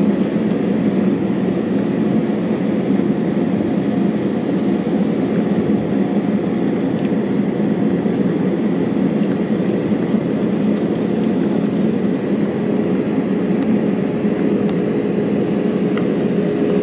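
Airbus A320 cabin noise heard from a window seat over the wing while the airliner taxis: the jet engines run at low taxi thrust as a steady, even low hum. A faint steady tone joins in a little past the middle.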